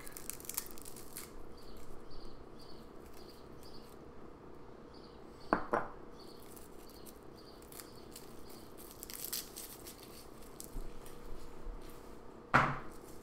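Garlic bulb being broken apart and its papery skins crackling and tearing as cloves are peeled by hand, with two short knocks, one about halfway through and one near the end.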